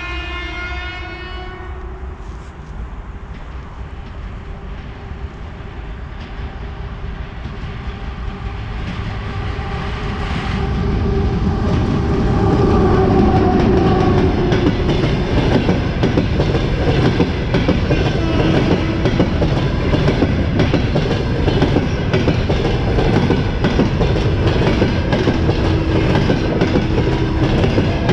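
Passenger train hauled by an EP1M electric locomotive. Its horn sounds as the train approaches and cuts off about a second and a half in. The rumble then builds over about ten seconds as the locomotive nears and passes, and the passenger coaches roll by close with a steady heavy wheel rumble and rapid clickety-clack over the rail joints.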